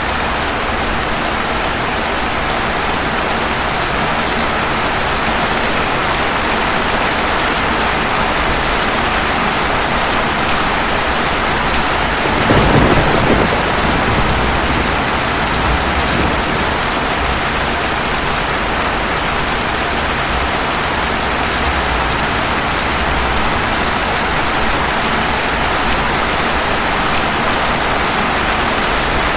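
Steady heavy rain hissing. A single thunderclap breaks about halfway through, followed by a few seconds of low rumbling.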